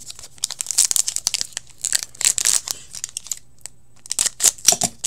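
Foil wrapper of an Upper Deck hockey card pack being crinkled and torn open by hand, in quick crackling clusters with two short pauses.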